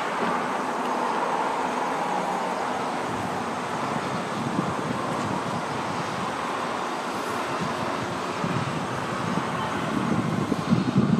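Steady wash of distant city traffic noise, with uneven low rumbles rising over the last few seconds.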